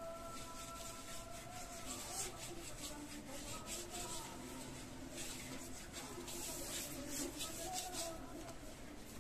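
Hand rubbing turmeric paste around the inside of a clay pot: soft, irregular scraping and rubbing. Faint voices murmur in the background.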